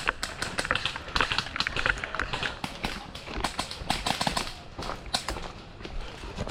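Footsteps: quick, irregular steps crunching over dry ground.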